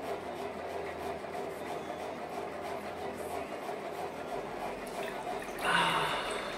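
Water in a bowl of ice water sloshing and splashing briefly, about a second before the end, as a face is dipped in or lifted out. A steady background hum runs underneath.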